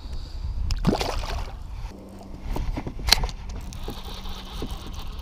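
Water lapping at a kayak with wind rumbling on the microphone; a short splash about a second in as a smallmouth bass is let go into the lake, and a single sharp knock about three seconds in.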